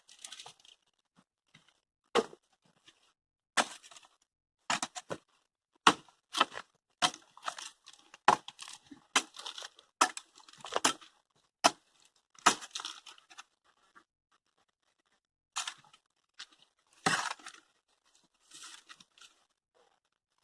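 Small hatchet chopping into dry dead wood, with the wood cracking and splintering. The sharp strikes come irregularly, roughly one a second, pausing briefly near the middle.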